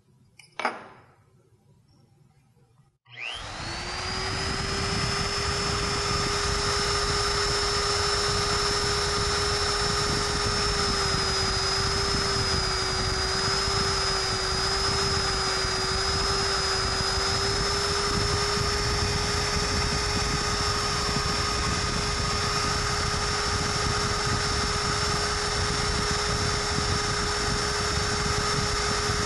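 Turbo-Sharp X industrial tungsten grinder switched on about three seconds in, its motor spinning up quickly and then running at a steady high whine while a tungsten electrode is ground to a point by hand. The pitch wavers a little midway.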